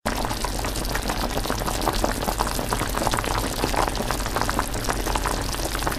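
Water boiling under a miniature bamboo steamer: a steady bubbling hiss crowded with small pops and crackles.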